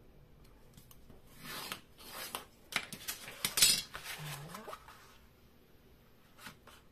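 Sheet of white cardstock rubbing and scraping on a cutting mat as it is handled and folded, with a metal ruler moved aside; a run of scrapes, the loudest about halfway through, then a few light taps near the end.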